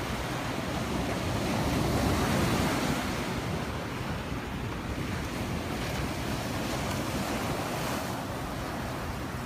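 Ocean surf breaking and washing up a sandy beach, a steady rush that swells louder a second or two in, with wind buffeting the microphone.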